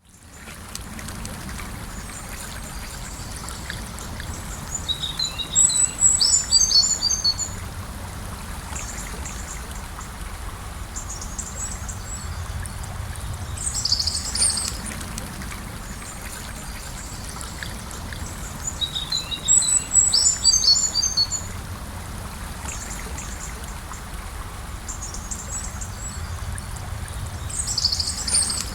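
Gentle river flowing with a steady rush of water, fading in at the start. A small bird sings short, high, quick phrases four times over it.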